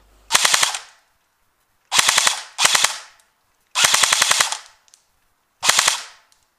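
D-Boys KAC PDW electric airsoft rifle firing five short full-auto bursts of rapid shots, with brief pauses between them.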